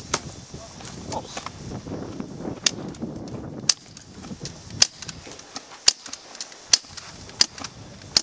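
Airsoft pistols firing single shots: about a dozen sharp, short cracks at irregular intervals, coming quicker and louder in the second half.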